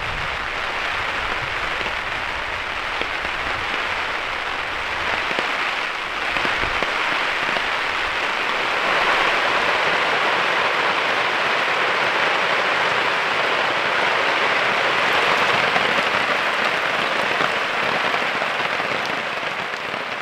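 Heavy rain falling steadily, a dense even hiss that grows a little louder about nine seconds in.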